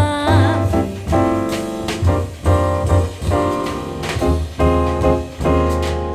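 A jazz vocal recording played through a triode-connected 6CA7 single-ended tube amplifier and bookshelf speakers, heard in the room: the singer's held final note fades within the first second, then piano chords over low bass notes carry the tune's ending.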